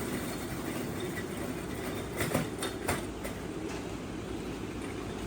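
Steady low rumbling din of a large flock of pigeons cooing together, with a few sharp clicks and knocks about two to three seconds in.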